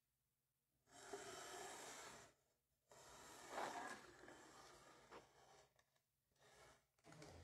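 Faint rubbing and handling noise: a cloth wiped across a wooden dining table and the recording phone being picked up and moved. It comes in two stretches of a second or two each, with a few shorter rustles near the end.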